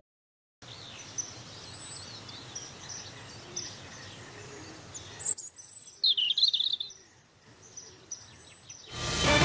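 Birds chirping over a faint outdoor hiss, with a quick cluster of louder chirps about six seconds in. Music starts near the end.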